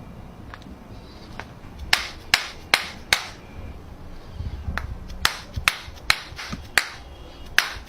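A series of about a dozen sharp, short knocks, irregularly spaced: four in quick succession about two seconds in, then after a pause seven more from about five seconds on.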